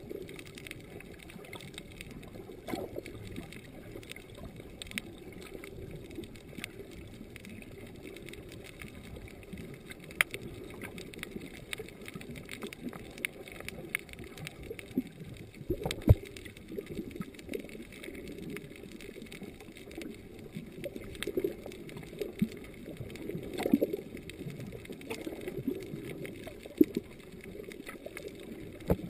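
Underwater ambience heard through a camera's waterproof housing: a steady, muffled water rumble with scattered sharp clicks, a few of them louder.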